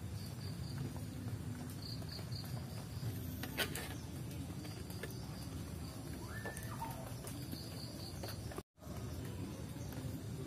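Outdoor ambience of insects chirping in short trills of a few high pulses every couple of seconds, over a steady low rumble. There is a single knock about three and a half seconds in and a brief falling call a little after six seconds. The sound drops out for an instant near the end.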